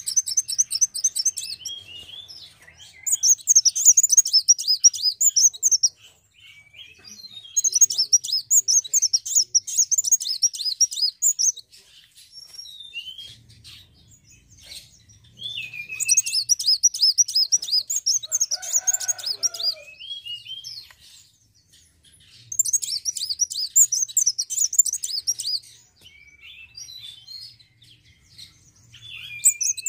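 Kolibri wulung sunbird singing in bursts of rapid, high twittering notes, each a few seconds long, about five in all, with short thin calls in the pauses between.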